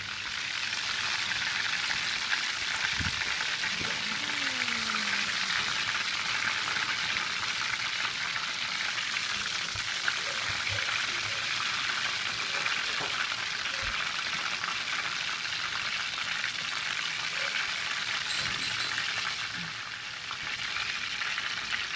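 Breaded chicken pieces deep-frying in hot oil in a stainless steel pot: a steady, even sizzle of bubbling oil. A few faint knocks come from metal tongs and a wire skimmer against the pot as the pieces are turned and lifted out.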